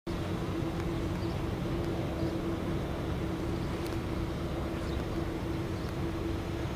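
Steady low mechanical hum: a constant drone over a low rumble, with a few faint short high chirps now and then.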